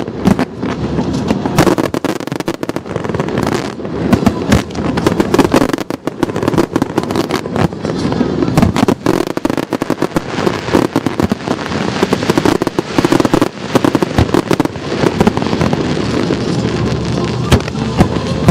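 Aerial firework shells bursting in a rapid, continuous barrage of sharp bangs, one close on another.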